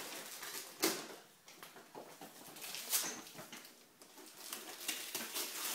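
Gift wrapping paper rustling and tearing as presents are unwrapped, in irregular crinkles and rips, the sharpest about a second in, around three seconds in and near the end.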